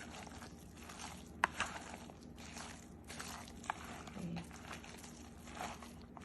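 Faint food-preparation handling sounds: soft rustling and scraping, with a few sharp clicks, two about a second and a half in and another near four seconds.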